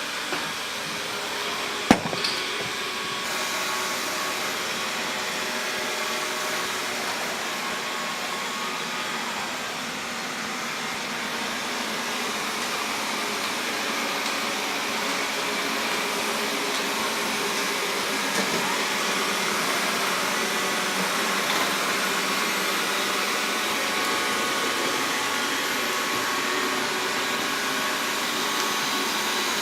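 Xiaomi Mi robot vacuum cleaner running steadily, a whir with faint steady whine tones, and one sharp click about two seconds in.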